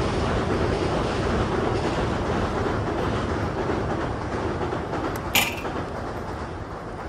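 Loud steady noise that slowly fades toward the end, with one sharp crack about five and a half seconds in.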